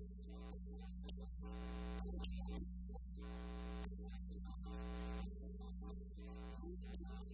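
Steady low electrical mains hum, with fainter pitched sounds coming and going above it.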